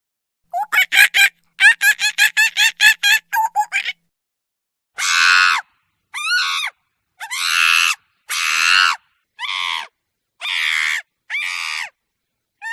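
Monkey calls: a quick run of short, high calls, about four a second for some three seconds, then after a pause a series of seven harsh screeches, each under a second long.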